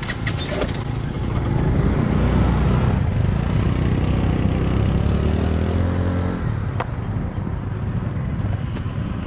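Engine noise: a low drone with a pitched hum that swells about two seconds in and cuts off abruptly about six and a half seconds in.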